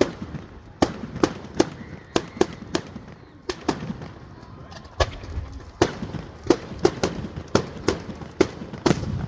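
Fireworks going off: an irregular string of sharp bangs, about two a second.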